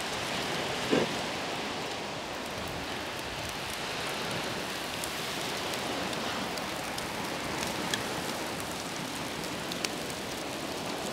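Oil-brushed tuna pieces sizzling steadily on a wire grill over an open fire, with a few faint crackles.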